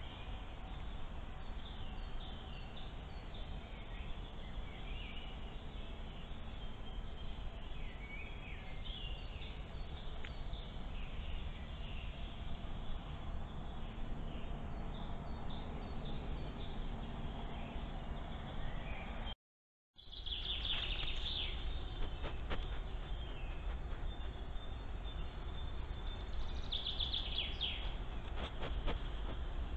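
Wildlife camera's microphone picking up a steady hiss and low rumble of woodland ambience, with faint small bird chirps scattered through. The sound drops out briefly about two-thirds through, and after that the bird calls are louder.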